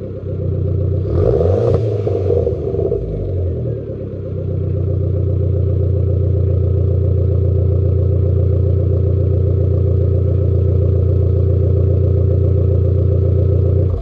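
Fiat 500 Abarth 595's 1.4 turbo four-cylinder engine breathing through an aftermarket Malian catback exhaust, warm: a quick rev blip about a second in that falls back, then a steady idle from about four seconds on.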